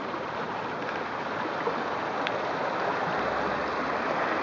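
Steady rush of sea water washing along the shore, an even hiss with no breaks.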